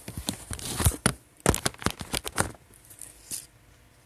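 Handling noise from the phone that is recording, close on its microphone: a quick run of knocks, taps and rubs as it is picked up and set back upright. The run fades after about two and a half seconds, and there is one more tap a little after three seconds.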